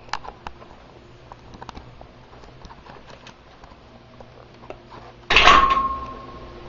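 Light clicks and knocks of handling, then about five seconds in a sudden loud clank with a ringing tone that fades over about a second, like metal struck or set down hard.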